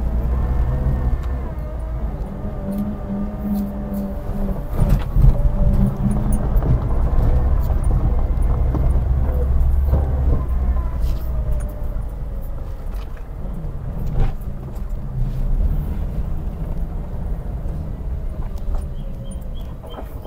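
Toyota Hiace van driving a slow lap and passing close by: engine and tyres making a low rumble that is loudest around the middle.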